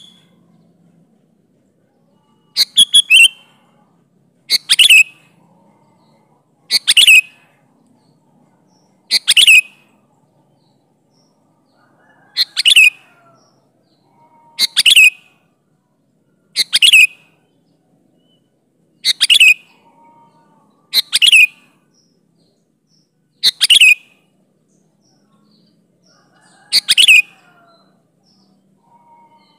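Sooty-headed bulbul (kutilang) calling: a series of short, loud calls about every two seconds, each a quick note sweeping down in pitch, with faint chirps between them.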